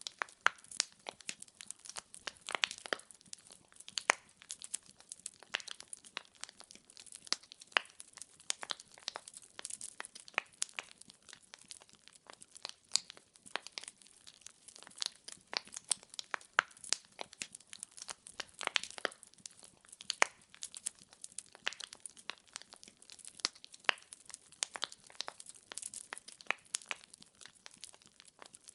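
Wood fire in a fireplace crackling, with frequent irregular sharp pops and snaps of burning logs over a faint steady hiss.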